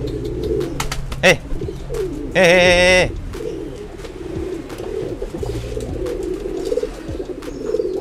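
Domestic pigeons cooing continuously in a low, wavering chorus, typical of a cock pigeon driving a hen. There is a sharp knock about a second in. The loudest sound is a brief, strongly pitched wavering call lasting about half a second, around two and a half seconds in.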